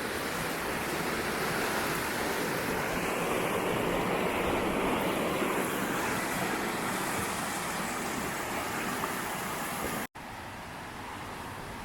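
Steady rush of a fast-flowing mountain stream. The rush drops to a quieter level after a brief gap about ten seconds in.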